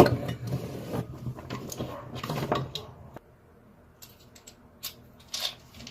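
Light clicks and knocks of a Porter Cable Quicksand sander's plastic housing halves and parts being handled and fitted back together.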